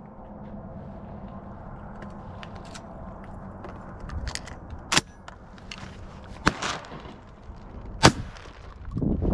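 Three shotgun shots about a second and a half apart, the last one the loudest.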